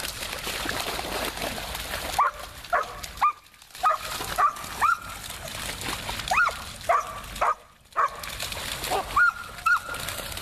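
A dog barking in short, high-pitched yelps over and over, with splashing as dogs run through shallow floodwater.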